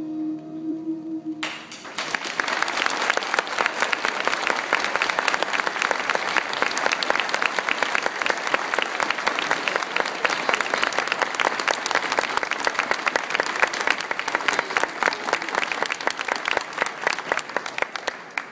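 The last held note of the music ends about a second in, then an audience claps steadily in a dense round of applause that dies away near the end.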